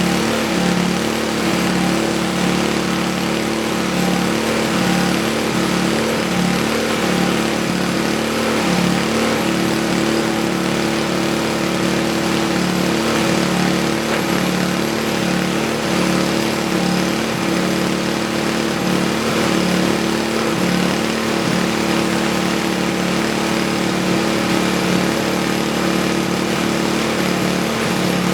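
Small single-cylinder snowblower engine running steadily on its own after a repaired fuel problem: running like a top again.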